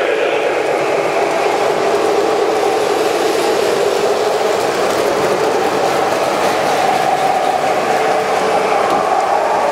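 Lionel-style O-gauge model trains running on three-rail track, giving a steady whir and rumble of motors and wheels as a smoking steam locomotive and heavyweight passenger cars pass close by.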